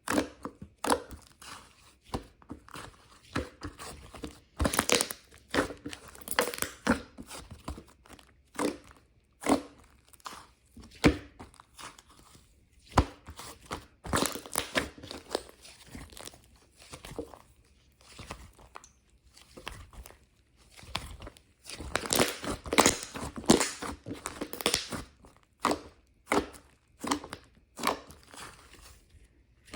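Irregular crinkling, tearing and crunching sounds, like plastic packaging or another crinkly material being squeezed and torn, coming in uneven bursts with short pauses.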